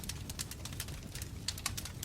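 Wood fire crackling, with many quick irregular pops and snaps of burning logs over a steady low rumble of flame.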